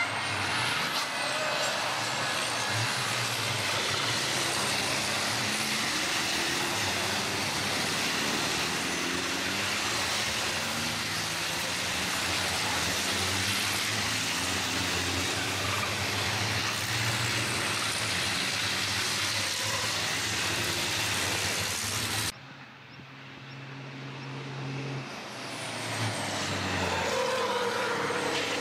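Race trucks' big diesel engines running hard as a pack passes through a corner, a dense, steady engine noise. About 22 seconds in it cuts off abruptly, then swells again as another group of trucks approaches.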